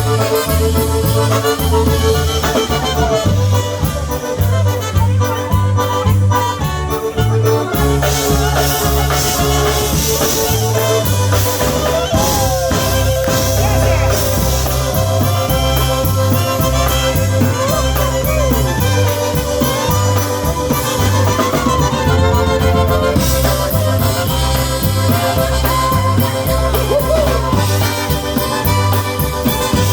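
Live polka band playing, with a steady, bouncing bass line under sustained melody notes.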